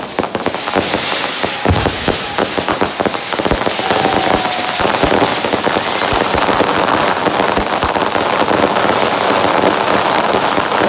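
Fireworks going off in a dense, continuous crackle, with a rapid run of sharp bangs and pops in the first few seconds and a short whistle about four seconds in.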